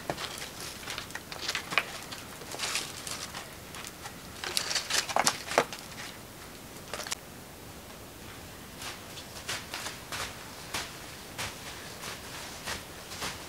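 Wood campfire crackling with irregular sharp pops and snaps. Later in the clip, footsteps in snow at a steady walking pace, a little under two steps a second.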